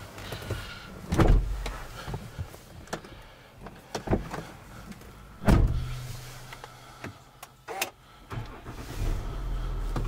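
Several sharp knocks and clicks inside a Land Rover's cabin, the loudest about a second in and about halfway through. Near the end the engine starts and settles into a steady low idle.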